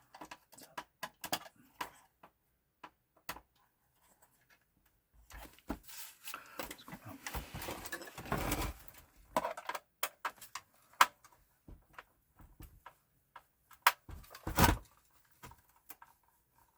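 PlayStation 4 console parts being handled during disassembly: scattered clicks and taps of plastic and metal, a stretch of rustling and scraping around the middle, and two sharper knocks in the second half.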